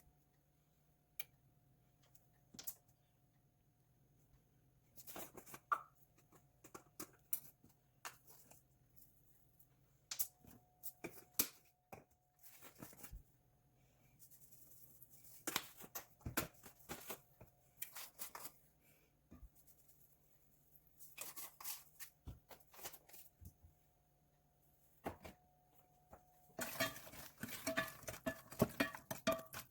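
Kitchen preparation noises: scattered clicks and knocks with bursts of rustling and tearing, getting busier near the end.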